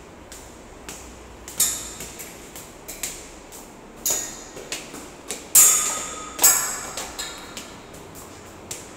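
Footsteps climbing hard stone stairs: a run of sharp, echoing steps about two a second, loudest in the middle, a couple with a brief metallic ring.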